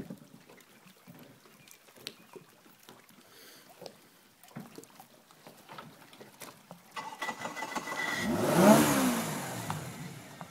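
A motor vehicle passes by, its engine sound swelling to a loud peak about eight and a half seconds in, then fading. Before it, small scattered knocks.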